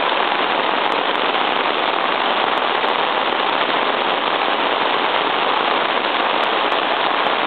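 Heavy rain pouring onto a flooded street: a loud, steady hiss of drops splashing on standing water.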